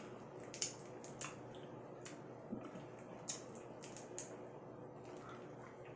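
Faint rustling of candy wrappers being handled and opened, with a few sharp crackles scattered through.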